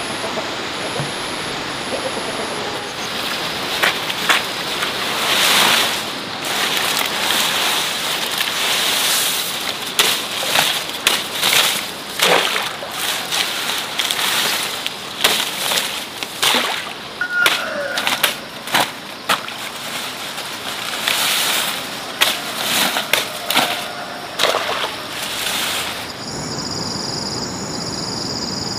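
Water splashing and sloshing in irregular bursts, with sharp clicks and knocks among them, for most of the stretch; it stops a couple of seconds before the end.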